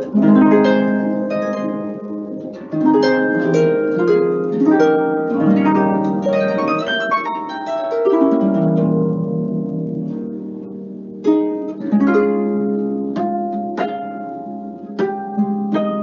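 Solo harp playing: plucked notes and broken chords that ring and fade. About eight seconds in, a low chord is left to ring for a couple of seconds, then the plucking starts again.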